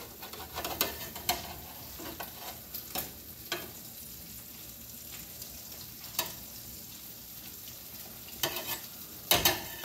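Food sizzling steadily in a hot pan, with a spatula clicking and scraping against the pan now and then, loudest near the end.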